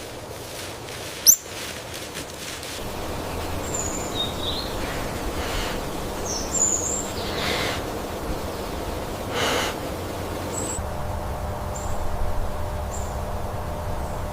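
Short high-pitched bird chirps every second or two over a steady outdoor background, after a single sharp click about a second in.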